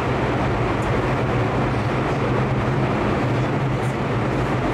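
Steady running noise of an electric commuter train heard from inside the passenger car: an even rumble with a low hum underneath.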